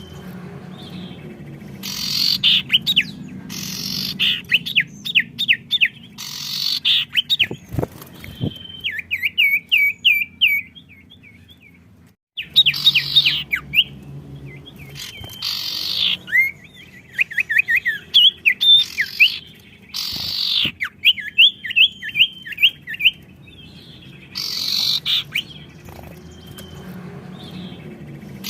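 Caged songbirds singing in loud bursts that answer each other, each burst a rapid series of sharp falling notes.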